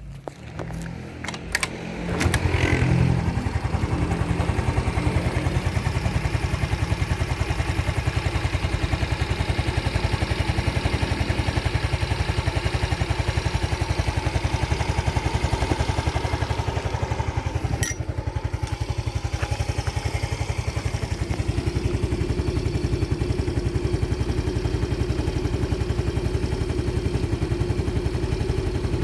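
Motorcycle engine: after a few clicks it comes up about two seconds in and then runs steadily with an even, rapid pulse, with one sharp click midway.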